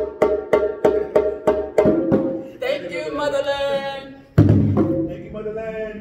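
Djembe played by hand together with a stick-played drum in a quick, even run of strokes. The drumming drops out for a moment while a voice holds a long call, then the drums come back in loud and heavy in the bass.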